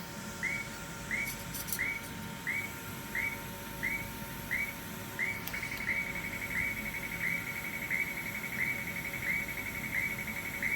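YAG laser welding machine working in a steady pulsed rhythm, giving a short rising electronic whine about every 0.7 seconds. About halfway through, a steady high tone joins the repeating whines.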